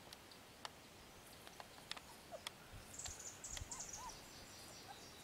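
A small bird twittering high-pitched for about a second and a half, starting about three seconds in, over faint quiet with scattered soft ticks.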